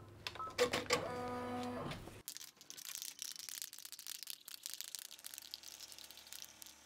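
Baby Lock Enterprise 10-needle embroidery machine being started: two short beeps and a brief pitched motor whine, then from about two seconds in the machine stitching the placement outline, a fast run of fine needle clicks.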